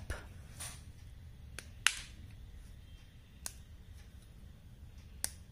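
Quiet room tone with about four short, sharp clicks spread out, the loudest about two seconds in.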